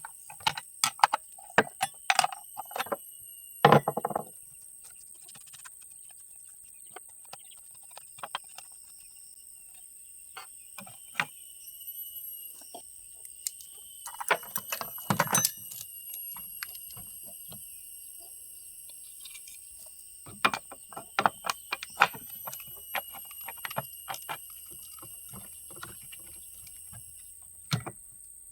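Scattered clicks, knocks and light metallic clatter of hand tools and parts being handled, in clusters with quiet gaps, over a faint steady high-pitched whine.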